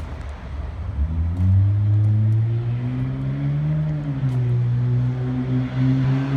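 A vehicle's engine speeding up about a second in, then running steadily at the higher speed, its pitch dipping and rising slightly.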